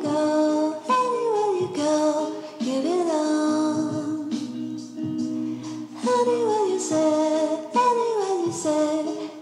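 Music with a singing voice, in repeated phrases that slide down in pitch over a steady backing.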